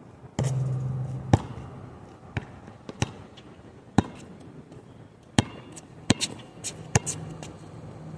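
A basketball bouncing on hard court, about nine sharp knocks at an uneven pace of roughly one a second, with a low steady hum underneath.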